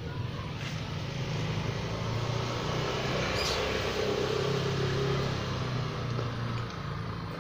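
Motor-vehicle traffic: a low, steady engine hum that grows louder through the middle and eases off near the end.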